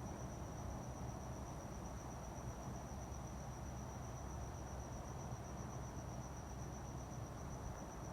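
A continuous high-pitched trill, the steady chirring of a night insect such as a cricket, over a low, steady background rumble.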